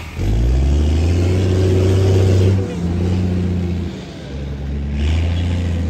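Walnut tree shaker's engine revving up and running hard while its clamped boom shakes the tree, a deep drone that rises at the start. It sags briefly about two and a half seconds in and again around four seconds, then picks back up.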